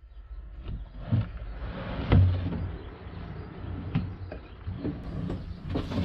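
Wooden slide-out tray carrying plastic water tanks being handled: irregular knocks and scraping of wood on wood, the loudest knock about two seconds in, over a steady low hum.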